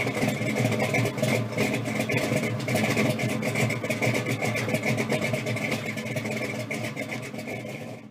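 A car engine running steadily, with a fast, even train of pops from the exhaust; it fades out at the end.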